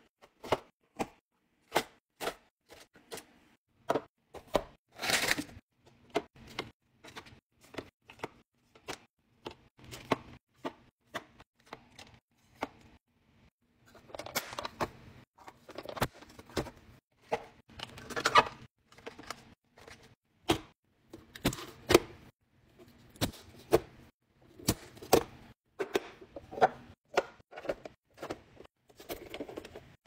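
Packaged snacks being unpacked and set into clear plastic organiser bins: a run of sharp plastic clicks, taps and knocks, with stretches of crinkling packaging about five seconds in and again for several seconds in the middle.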